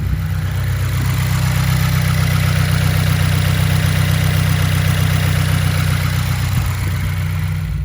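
Subaru WRX's turbocharged flat-four idling steadily, with no clutch chirp now that a spring holds the clutch fork.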